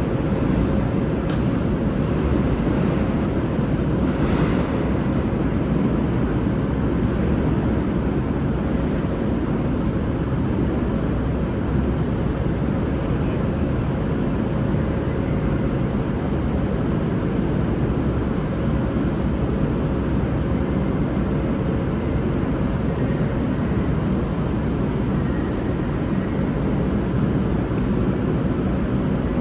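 Steady diesel rumble of a V/Line VLocity railcar's engines running, with a faint steady tone over it. A single sharp click about a second in.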